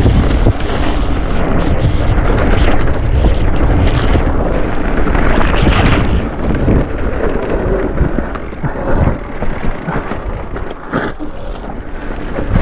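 Mountain bike riding along a trail, its tyres and frame rattling under wind buffeting the camera microphone. The noise eases off about halfway through.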